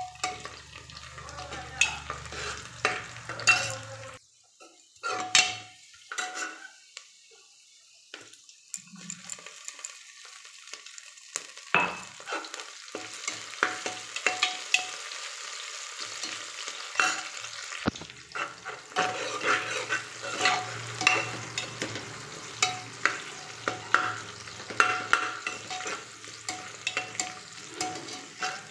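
Sliced onions frying in oil in an aluminium pressure cooker, sizzling, while a steel spoon stirs them and scrapes and clicks against the pot. The stirring goes quiet for several seconds about four seconds in, then resumes with frequent clicks.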